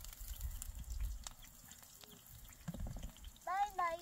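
Low rumble with a few faint clicks and crackles from the wood cooking fire, then near the end a small child's high-pitched voice rises briefly.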